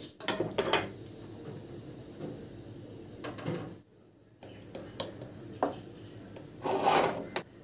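Wooden spatula knocking and scraping against a plate while pressing and spreading a soft, thick barfi mixture flat. There are a few short knocks at the start, a brief break in the middle, and a longer scrape near the end.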